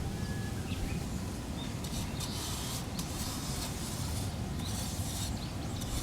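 Marbles rolling along a wooden slope and rain-gutter track, a rolling hiss that comes and goes in stretches over a steady low wind rumble on the microphone.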